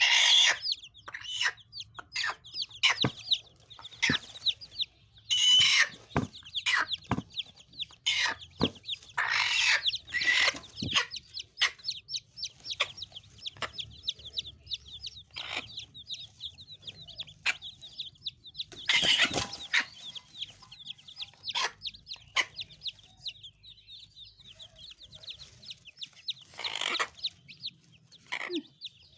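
Hen clucking and squawking in loud, irregular calls over a near-continuous run of short, high peeping calls.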